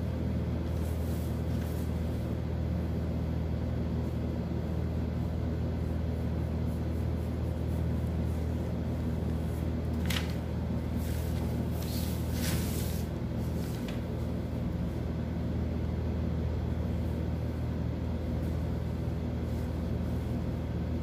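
A steady low hum runs throughout, with a few brief rustles of pattern paper a little past the middle.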